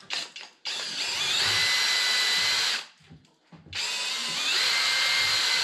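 Electric miter saw cutting 2x4 lumber. The motor whines up to speed and runs for about two seconds, stops, then starts again about a second later for a second cut.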